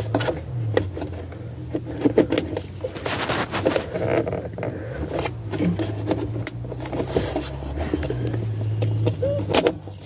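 Scattered plastic clicks, creaks and knocks as the upper steering-column cover of a 2001 Chevy Impala is pried and worked loose, with fabric rubbing close to the microphone, over a low steady hum.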